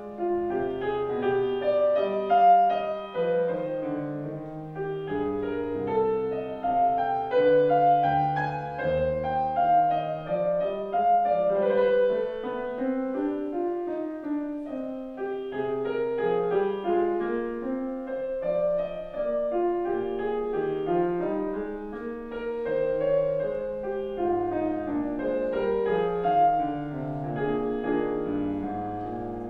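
Grand piano played solo: classical music, a continuous stream of notes rising and falling without a break.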